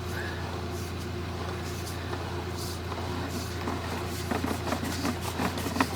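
Steady low engine hum, with scattered light clicks and knocks joining in from about four seconds in.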